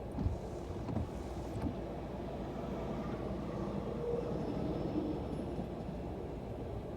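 Steady low vehicle rumble, with three short knocks in the first two seconds.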